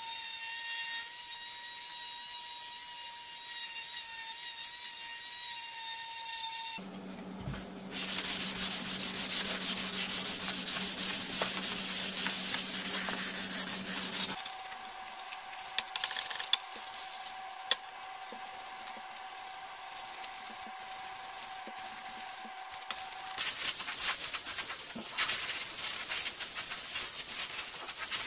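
Sanding a walnut cutting board: for about seven seconds an electric detail sander runs on the wood with a steady whine, then, after a short pause, the wood is rubbed by hand with a sanding sponge, with scattered small knocks, growing louder for the last few seconds.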